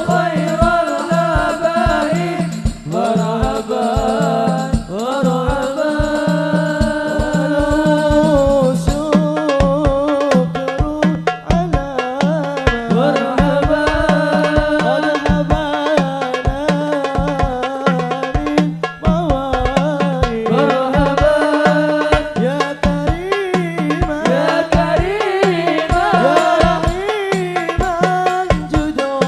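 A sholawat qasidah sung in Arabic over a hadroh ensemble of hand-played frame drums and darbuka keeping a dense, steady beat.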